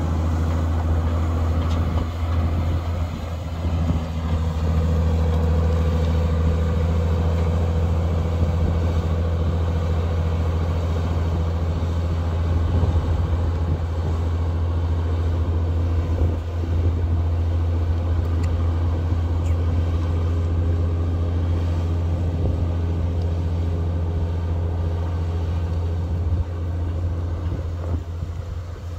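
Heavy diesel engine of earth-moving machinery running steadily, a deep low drone that holds an even level.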